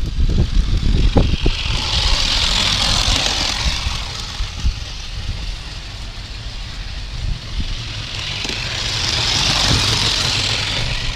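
Small live-steam test sled with a vertical boiler running along garden railway track: a steady hiss that swells as it passes close, about two seconds in and again near the end, over a low rumble.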